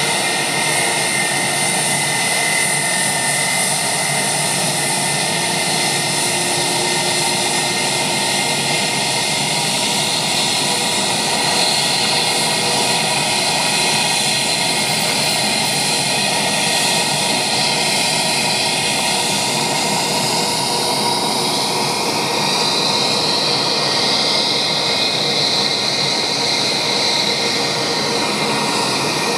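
Airbus A320 jet engines running in a steady roar with high whining tones. About two-thirds of the way through, a high whine starts to shift in pitch.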